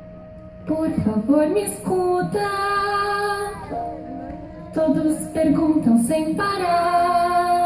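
A young female voice singing long held notes over a recorded musical accompaniment in a theatre hall. The singing starts about a second in, drops briefly in the middle, then comes back.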